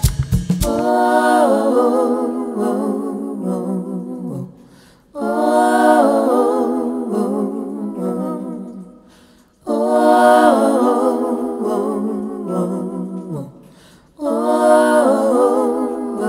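Background music: a wordless vocal melody, sung or hummed in four long phrases that begin about every four and a half seconds and fade away, with no beat.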